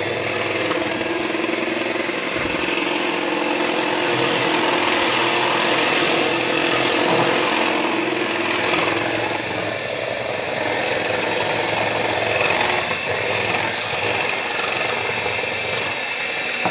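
Electric hand mixer running steadily in a glass bowl, its beaters whirring through cake batter.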